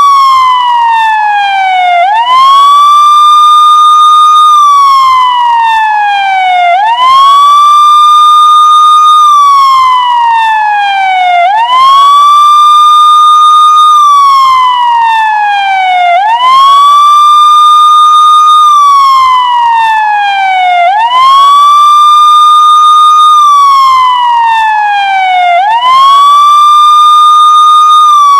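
Police car siren wailing: the pitch rises quickly, holds a high note for about two seconds, then glides slowly down, repeating about every five seconds.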